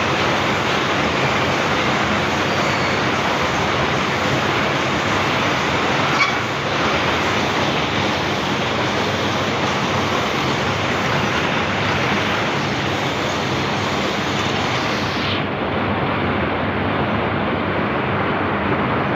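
Packing machine for gallon-bottle tissue seals running with a steady, even mechanical noise, with a single knock about six seconds in.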